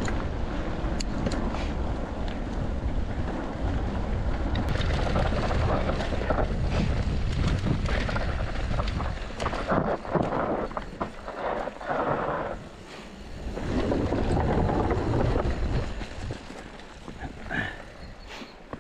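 Wind buffeting the camera microphone on a mountain-bike descent. Scattered clicks and rattles come from the bike over rough trail. The rush eases briefly about two-thirds of the way through and drops lower near the end.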